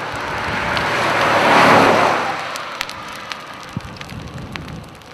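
Thunderstorm wind rushing over the microphone, swelling for about two seconds and then fading, followed by scattered sharp ticks of the first hail and raindrops striking.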